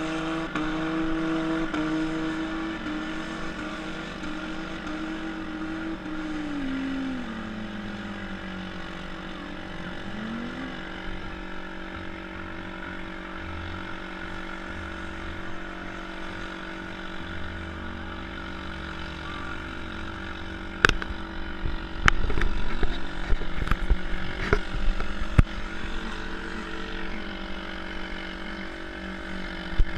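Demolition derby car engines running and revving, their pitch rising and falling. About two-thirds of the way through comes a run of sharp bangs and clatter from cars colliding, the loudest part.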